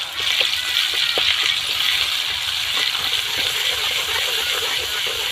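Food sizzling in hot oil in a pan, starting suddenly as it goes in and holding steady, with a few light clinks.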